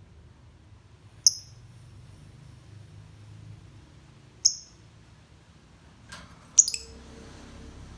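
Lovebird giving short, sharp, high-pitched chirps: single calls a few seconds apart, then a quick run of two or three near the end.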